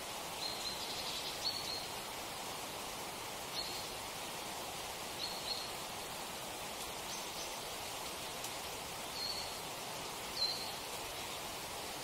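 Steady rushing water, an even noise that does not change, with short high bird chirps breaking in every second or two, the clearest about a second and a half in and about ten and a half seconds in.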